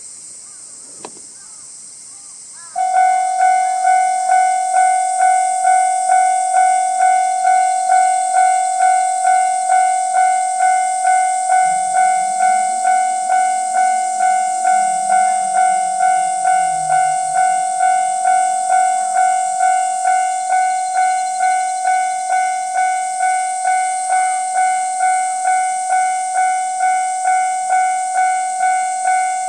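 Japanese railway level-crossing alarm starting up about three seconds in: an electronic bell dinging steadily at about two strokes a second, warning of an approaching train. A high steady hiss runs underneath.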